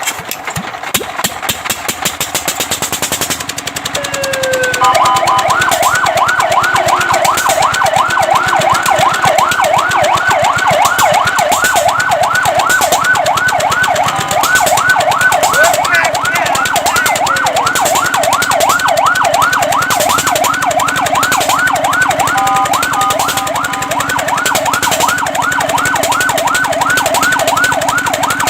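Fire truck siren in a fast yelp, sweeping up and down about three times a second. It starts about five seconds in after a short rising whoop. Twice it breaks briefly into a steady tone before the yelp resumes, and an engine is running underneath.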